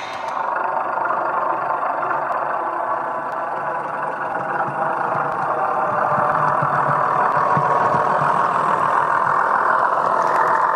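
Dapol Class 121 model railcar's DCC sound decoder playing a diesel railcar engine running steadily through the model's small speaker. It gets louder about halfway in, as the railcar nears.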